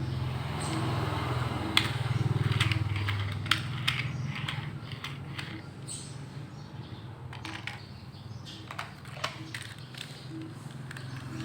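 Toy vehicles being handled and sorted, giving irregular light clicks and knocks as plastic and metal parts tap together, over a steady low hum.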